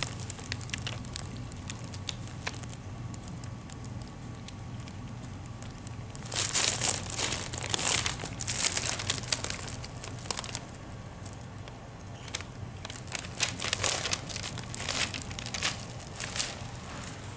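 Tissue paper crinkling under a cat's paws as it walks and shifts about on it, in irregular bouts that are loudest about six to nine seconds in.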